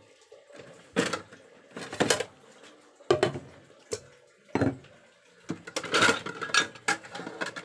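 Dishes and utensils being handled during hand-washing, knocking and clinking. Separate knocks come about once a second, then a quicker run of clatter near the end.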